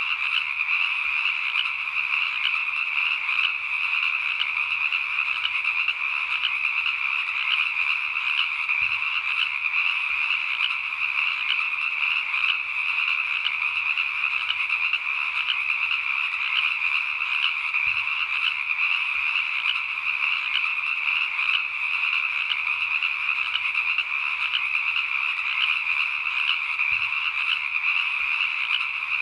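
A dense chorus of frogs calling steadily, many voices blended into one unbroken trill with no pauses.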